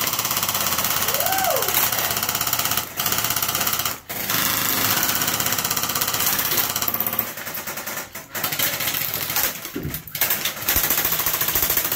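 Several airsoft guns firing on full auto at once, a dense continuous rattle of rapid shots with a few brief breaks.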